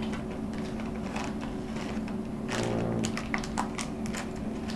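Hands handling the network cable and tools, making a string of light clicks and taps, most of them past the middle, over a steady low hum.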